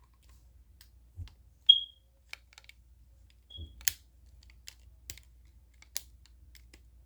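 Light plastic clicks and taps of a toy action figure's joints being moved and posed, with a few soft low knocks. Twice a short high-pitched chirp sounds, the first loud and a little under two seconds in, the second fainter about two seconds later.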